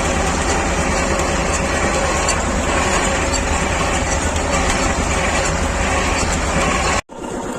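Vladimirets T-25 tractor's two-cylinder air-cooled diesel running steadily. The sound cuts out abruptly about seven seconds in.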